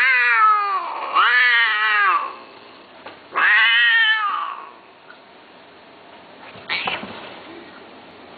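Himalayan Persian cats mating, with loud caterwauling: three long, wavering yowls in the first four and a half seconds, then a short sharp sound just before seven seconds in.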